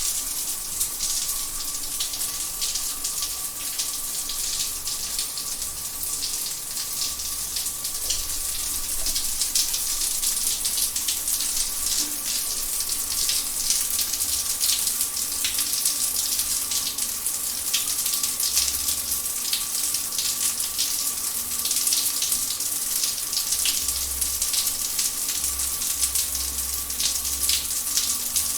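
Shower running: a steady spray of water hissing and spattering without a break, with a faint steady tone beneath it.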